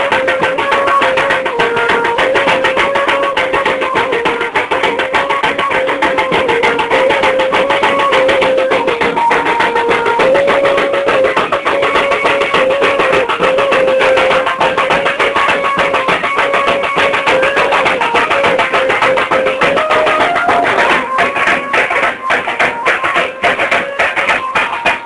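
Music with steady drumming and a melody of held notes stepping between a few pitches; the drum strokes stand out more sharply near the end.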